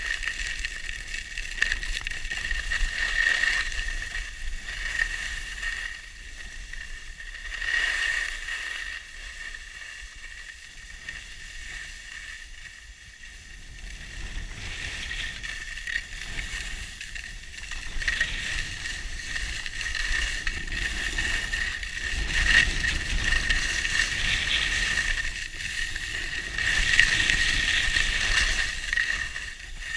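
Skis hissing and scraping over packed, groomed snow on a downhill run, with wind rumbling on the camera microphone. The hiss swells and fades with the turns, easing off for a few seconds midway and growing louder near the end.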